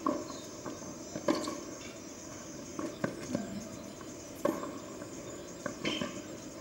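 Tennis rally on a hard court: sharp racket-on-ball strikes and ball bounces about every second and a half, over steady background hiss.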